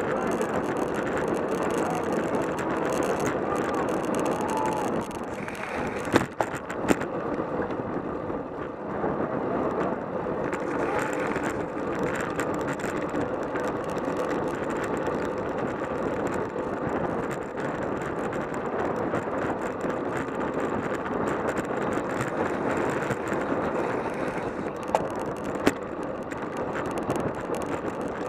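Road bicycles racing in a pack: a steady rush of wind and tyre noise, with a few sharp clicks about six seconds in and again near the end.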